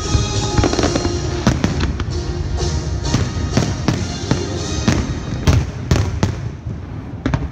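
Aerial firework shells bursting in quick succession, a run of sharp bangs over music playing with the display. The bangs thin out near the end.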